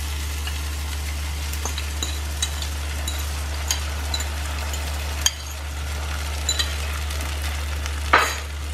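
Beaten egg and milk sizzling in a hot nonstick frying pan with onion, chilli and tomato as it is poured in, with scattered small crackles over a steady low hum. There is a short knock about five seconds in and a louder brief clatter near the end.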